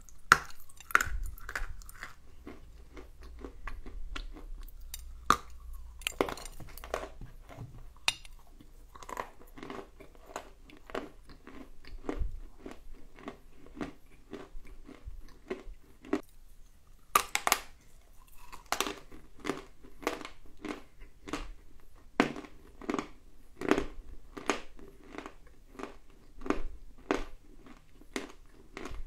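A person biting into and chewing dry lumps of edible clay: a steady run of crisp crunches, with a loud bite about a second in and louder crunches around five and seventeen seconds.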